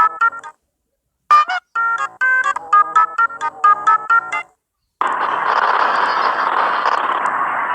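Short electronic jingle of quick staccato notes, broken by a brief gliding squeak about a second in. After a short silence, a steady hiss-like rush of noise starts about five seconds in and lasts about three seconds.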